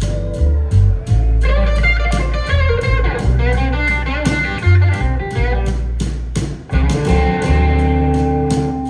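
Live blues band playing an instrumental passage: electric guitar lines with bent notes over a steady bass line and drum beat.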